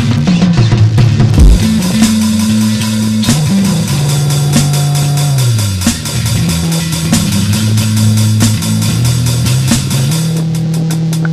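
Rock band playing an instrumental passage: drum kit keeping a steady beat, bass guitar with a line that slides between notes, and guitar.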